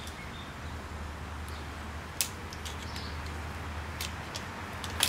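Snap ring pliers working the snap ring off the inboard tripod of an OEM Toyota Tacoma CV axle: a few sharp metallic clicks, the loudest about two seconds in and two more near the end, over a steady low hum.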